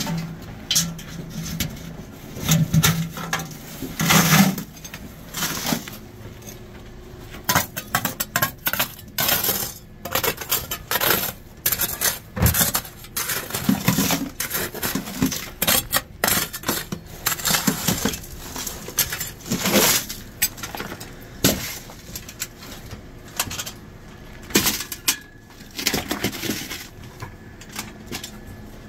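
Steel shovel scraping and striking broken rock by hand, with rock clattering: irregular metallic clinks and scrapes, some strikes louder than others.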